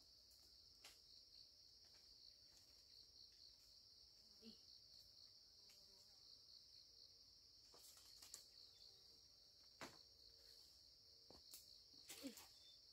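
Faint, steady high trilling of forest insects, with a few soft knocks and taps scattered through, the clearest about ten seconds in and near the end.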